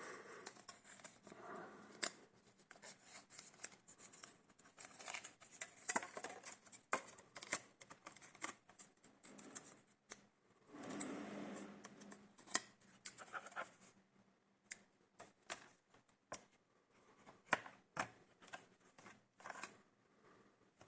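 Hands handling an HP DV6 laptop and its SODIMM RAM modules: many small sharp clicks and taps of plastic and metal, with stretches of scraping near the start and about halfway through.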